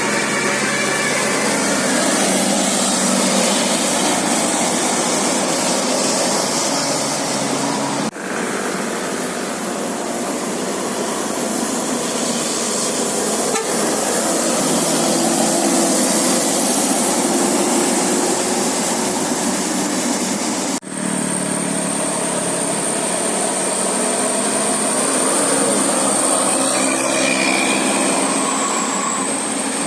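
Loud, steady road noise of buses and traffic going by, broken by two sudden cuts about eight and twenty-one seconds in. A thin, steady high whine runs through the last third.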